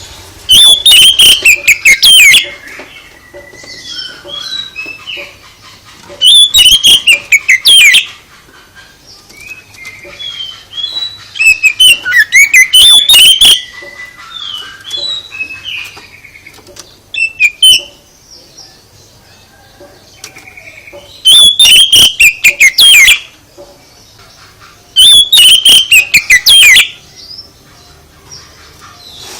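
Songbird singing loud, warbling phrases of falling whistles, about six in all, each a second or two long, with softer chirps between them.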